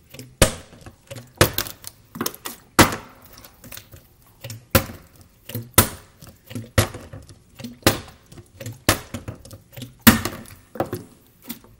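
Partly filled plastic water bottle being flipped and landing on a granite countertop over and over, a sharp knock about once a second.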